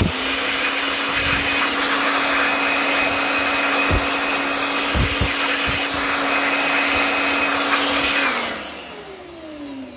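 Generic cordless blower, a knock-off of the Makita 18V blower, switched on and running at a steady speed with a constant whine over the rush of air, as it blasts dust out of plastic tool casings. A few low thumps come in the middle. About eight seconds in it is switched off and its whine falls as the motor spins down.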